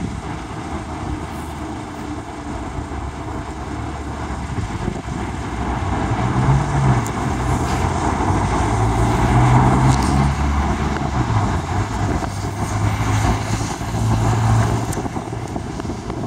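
A road vehicle's engine running nearby over a steady rumble of outdoor noise. It grows louder about five seconds in, its pitch stepping up and down as it goes.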